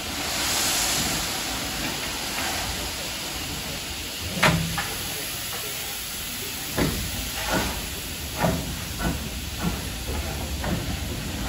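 Steam tank locomotive hissing steam, then moving off: one strong exhaust chuff about four and a half seconds in, then a run of chuffs from about seven seconds that come gradually faster as it gets under way.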